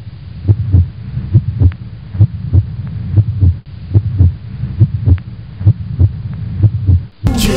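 Muffled, bass-heavy interlude of the song: low thumps in pairs, a little under one pair a second, like a heartbeat, over a low hum, with the treble cut off.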